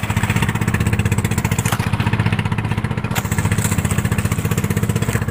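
Small fishing boat's engine running steadily with a rapid, even putter.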